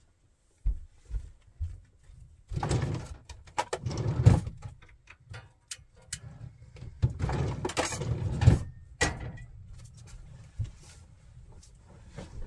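Bursts of rustling with several sharp knocks and clicks, the sounds of a person moving about and handling things in a small room.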